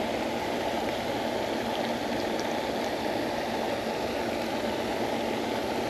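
A steady rushing noise with a faint low hum underneath, even throughout and with no distinct events.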